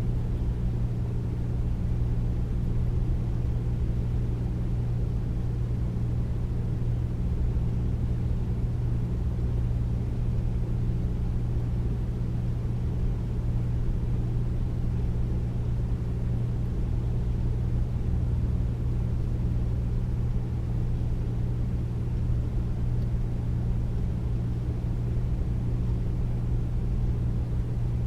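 Air conditioner running steadily: a deep, even rumble of white noise with a constant low hum under it.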